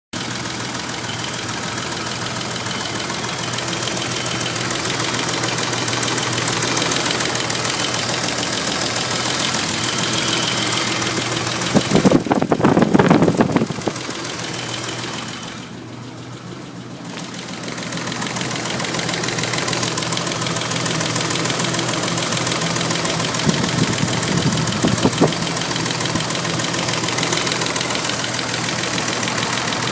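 BMW M30B35 straight-six engine running with a rapid, steady knocking tick, the knocking noise the owner is chasing with the rocker-arm valve clearance set at 0.30 mm. The sound swells louder and rougher twice, about twelve and twenty-four seconds in, and drops briefly around sixteen seconds.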